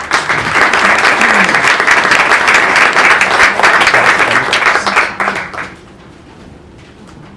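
Audience applauding for about six seconds, then the clapping dies away.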